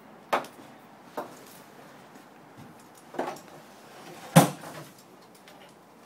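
Four sharp knocks spread over a few seconds, the fourth the loudest.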